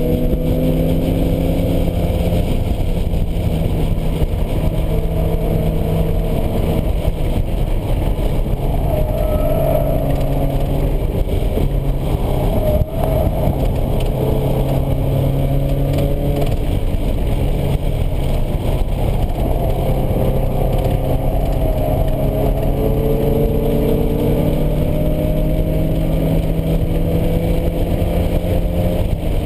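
A 1986 Porsche 944's normally aspirated four-cylinder engine under hard track driving, heard from inside the cabin: the engine note climbs steadily under acceleration and steps down at gear changes, with another shift near the end.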